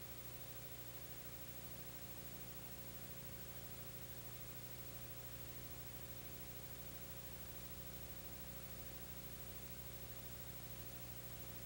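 Steady hiss with a low mains hum and no other sound: the empty sound track of a transferred silent film.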